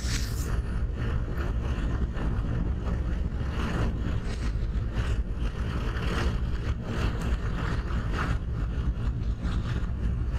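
Motorcycle running steadily on the move, a continuous engine and road rumble with wind on the microphone.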